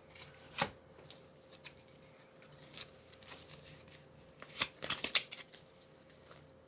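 A just-opened foil booster pack and its Pokémon trading cards being handled: short, sharp rustles and clicks, with a loud one about half a second in and a cluster of them around five seconds in.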